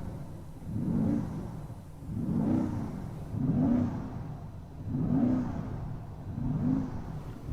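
2024 BMW XM's twin-turbo V8 revved repeatedly: about five short blips, each rising and falling in pitch, roughly one every second and a half.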